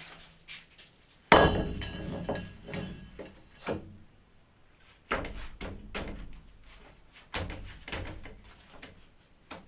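Steel pipe handled on a wooden board: a loud clank with a ringing tail about a second in, then a series of knocks and scrapes as the pipe is pushed and turned into place.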